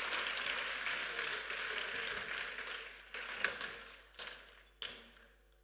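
Audience applauding, the clapping dying away over a few seconds, with a few last single claps near the end.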